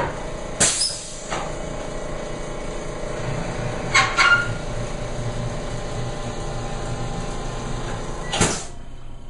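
Pneumatic Thompson drop-table sections dropping during chiropractic adjustments, each giving a sharp bang. There is one just under a second in, a quick double knock about four seconds in, and a last one near the end. Under them runs a steady hum from the table's air compressor, which cuts off just after the last bang.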